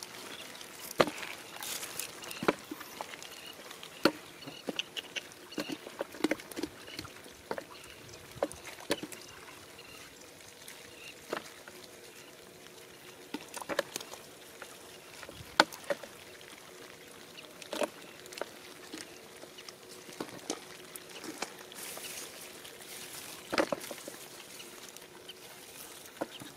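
Irregular sharp slaps and taps of live fish flopping on the dry, cracked mud of a drained rice field, scattered a second or two apart, over a faint steady hum.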